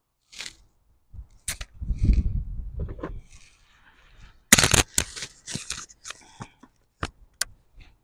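Rustling, scraping and knocking as a landing net holding a freshly caught bream is handled, with a low rumble about two seconds in, one loud sharp crack about halfway through and two light clicks near the end.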